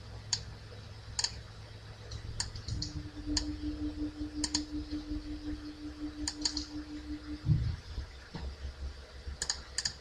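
Computer mouse clicking sharply and irregularly, about once a second, as anchor points are placed with Illustrator's pen tool. From about three seconds in to about seven and a half seconds, a steady low hum also sounds and ends with a soft thump.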